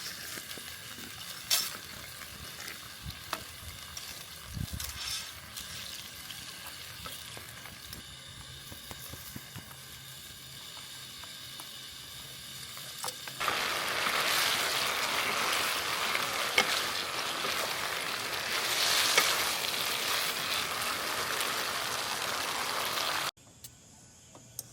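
Aglio e olio frying in olive oil in a pan, sizzling with scattered crackles. About 13 seconds in the sizzle suddenly becomes much louder, and it cuts off abruptly near the end.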